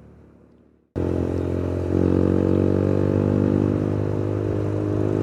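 Suzuki Gixxer motorcycle with a loud aftermarket exhaust, running on the move. The engine sound cuts in abruptly about a second in and steps up a little in loudness about two seconds in.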